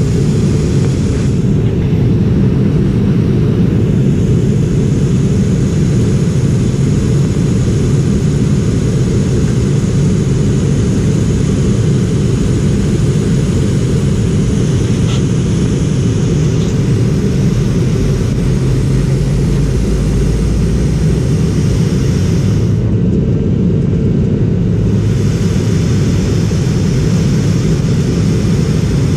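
Steady, loud cabin drone of a McDonnell Douglas MD-88 airliner in flight, from its rear-mounted Pratt & Whitney JT8D turbofans and the air rushing past the fuselage, heard from a window seat. The higher hiss on top of the deep rumble dulls briefly twice.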